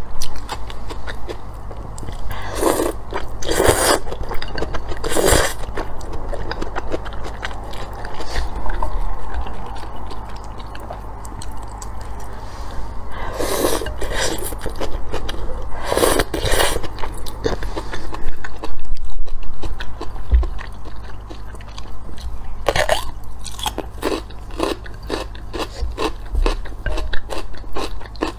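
Close-up eating sounds: noodles slurped up from a bowl of soup in several long pulls, with bites and chewing of a crunchy pickled cucumber between them. The crunchy clicks come thickest in the last few seconds.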